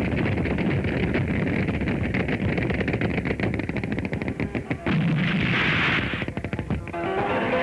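Anti-aircraft guns firing a dense barrage of rapid shots, with a louder blast of noise about five seconds in.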